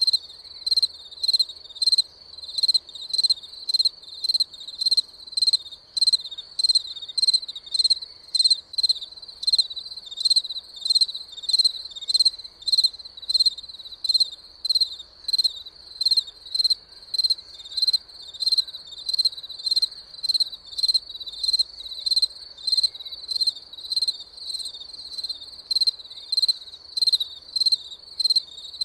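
A cricket chirping steadily in an even, high-pitched rhythm of about two chirps a second.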